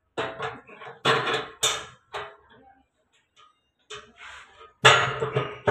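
Stainless-steel mixer agitator shaft being worked out of its tank by hand, its metal knocking and scraping against the steel. There are two sharp knocks about a second in and a louder, ringing clang near the end.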